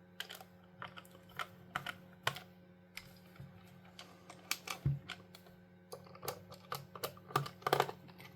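Irregular small clicks and taps as a screwdriver drives Phillips screws into a plastic game controller shell, coming more often near the end.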